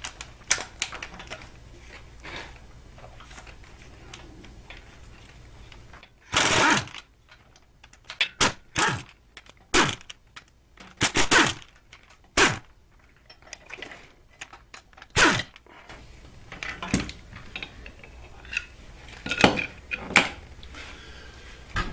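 Pneumatic air ratchet run in a series of short bursts, backing out the 10 mm bolts that hold the water pump on a Subaru EJ257 engine block, with metal clinks of bolts and tools between the bursts.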